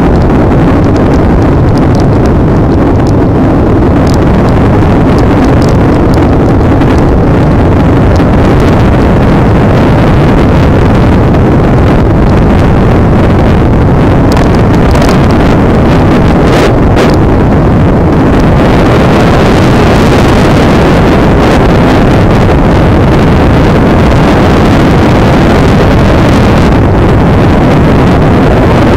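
Loud, steady wind rumble on the microphone while riding a Daymak Kingston 72-volt electric scooter, mixed with the scooter's travel noise.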